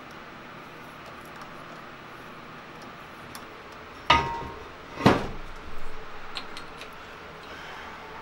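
Two sharp metal clanks about a second apart, the first ringing briefly, followed by a few lighter clinks: steel tools or parts being knocked together or set down on metal.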